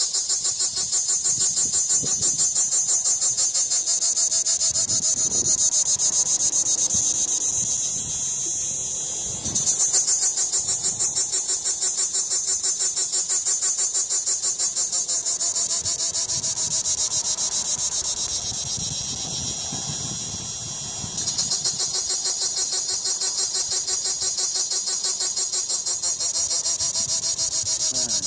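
A cicada singing close by: a loud, high, rapidly pulsing buzz that keeps on steadily, growing louder about ten seconds in, easing off for a few seconds, then picking back up a little past twenty seconds.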